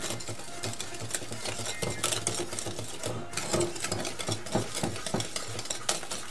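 Wire whisk beating eggs and sugar in a glass bowl: quick, steady clicking and tapping of the metal whisk against the glass.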